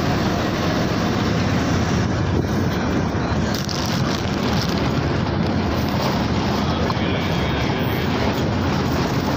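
Passenger bus in motion, heard from its open front doorway: a steady engine drone mixed with road and wind noise.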